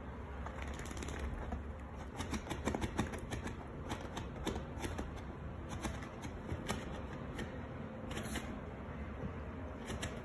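A Yorkshire terrier's paws and claws tapping and scratching on a leather couch as it stamps about, a run of irregular quick clicks with a short scuffing rustle a little after eight seconds.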